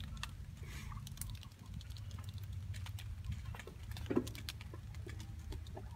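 Chickens in kill cones scuffling faintly as they bleed out: light scattered scratches and clicks over a low steady hum.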